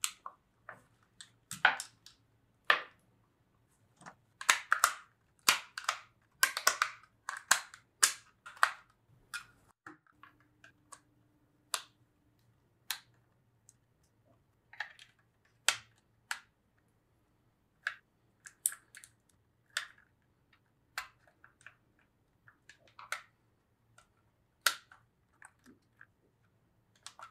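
LEGO Technic plastic parts clicking and rattling as they are handled and pressed together by hand: a dense run of sharp clicks early on, then sparser single clicks with pauses between them.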